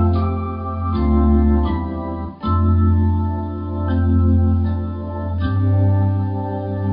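Live band playing an instrumental passage: held organ-like keyboard chords over a strong bass guitar line, with acoustic guitar, the chords changing every second or so and a brief drop about two and a half seconds in.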